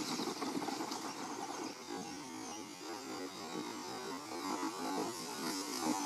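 Radio-controlled car driving across dirt: a steady hum and wavering noise from its motor and tyres on the dry ground.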